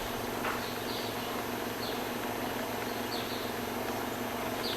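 Washing-machine water inlet solenoid valve buzzing steadily while water is let in, with short high chirps at irregular intervals. This is the intermittent-inlet fault, which the owner traces to the valve itself.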